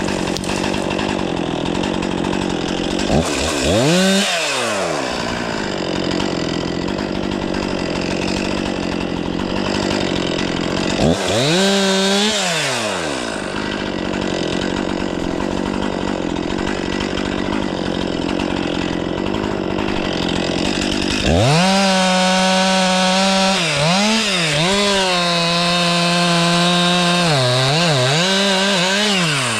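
Stihl 500i two-stroke chainsaw idling, revved up briefly twice, then held at high revs near the end with its pitch dipping repeatedly as it bogs under load in the cut.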